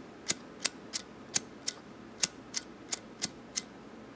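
Zippo lighter's flint wheel struck over and over with the thumb, about three sharp clicks a second, without the lighter catching.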